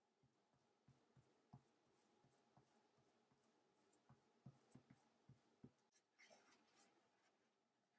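Faint soft taps and scrapes of a metal spoon spreading and pressing mashed potato filling over a flour tortilla, then a brief rustle about six seconds in as the tortilla's edge is lifted to fold it.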